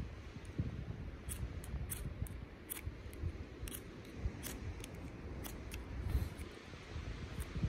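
Ferrocerium rod struck again and again with a metal striker: about a dozen short, sharp rasps at uneven intervals, throwing sparks onto tinder to light a fire.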